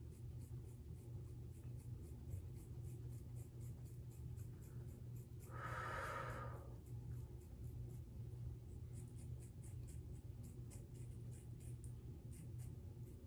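Small scissors snipping through a section of thick natural curly hair: a run of faint, crisp snips, a few a second, coming faster near the end. About six seconds in there is one long breath out.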